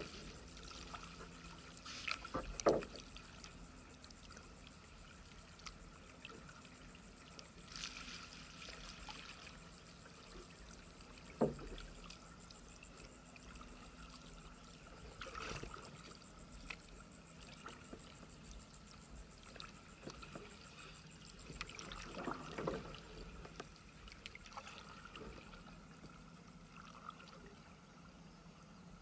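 Faint kayak paddling: the paddle dips and splashes in calm water every few seconds, with a sharp knock about eleven seconds in.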